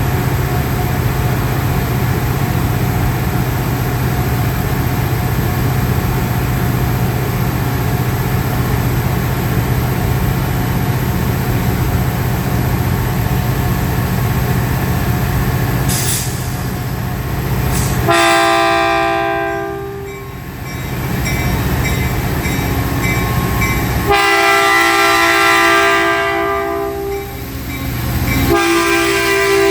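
Caltrain train running by with a steady low rumble, then its horn blows three times, a chord of several tones; the first blast drops in pitch as the train passes.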